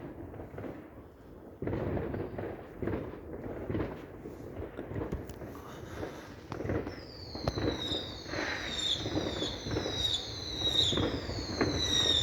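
Fireworks going off: a scatter of pops and bangs, joined from about halfway through by a run of short high whistles, each falling in pitch, repeating about twice a second.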